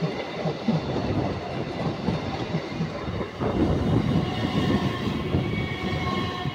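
Passenger train coaches rolling past close by, the wheels clattering rhythmically over the rail joints.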